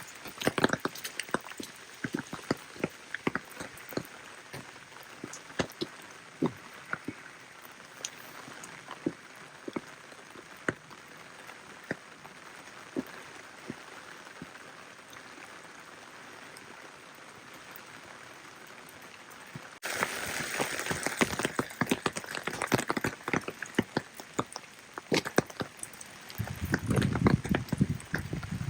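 Rain falling, with a steady hiss and many separate sharp drop impacts. About two-thirds of the way through it abruptly becomes louder and denser, and near the end a low rumble joins in.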